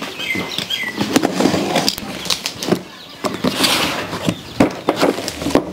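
Cardboard box being opened with a utility knife: the blade cuts through the packing tape, and the cardboard flaps rustle and scrape as they are pulled apart, with scattered sharp clicks and knocks.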